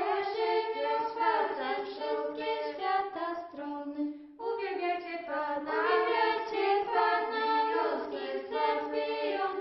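An a cappella choir singing a Polish hymn in several voices, with a short break between phrases about four seconds in.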